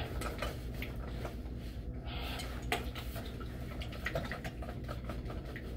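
Small steam iron pressed and worked over a cotton-blend uniform: a brief hiss of steam about two seconds in, with light rustling of the fabric and small knocks of the iron.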